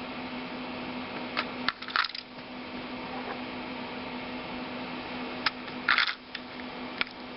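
Batteries being fitted by hand into a camcorder's plastic battery compartment: a series of small hard clicks and clacks, bunched about two seconds in and again around six seconds, over a faint steady hum.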